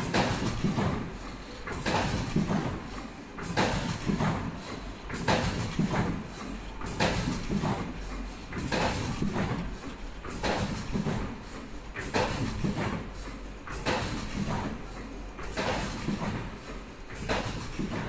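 Richpeace surgical mask production line running, with a repeating mechanical clatter about every 1.7 s as the machine cycles, each clatter followed by a brief high tone.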